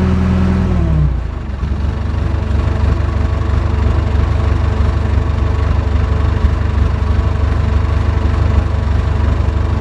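JCB backhoe's diesel engine running at raised revs, which drop about a second in; it then runs on steadily at idle.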